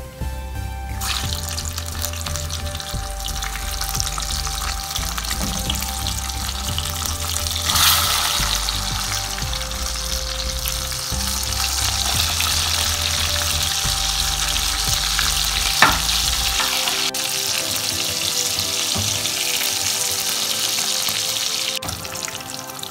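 Battered chicken pieces deep-frying in hot oil for their second fry, a steady sizzle that starts about a second in as the chicken goes into the oil and swells about eight seconds in. A single sharp click comes about sixteen seconds in, and the sizzle drops shortly before the end.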